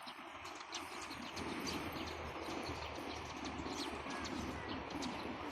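Birds calling and chirping outdoors over a steady background hiss, with short high chirps scattered through.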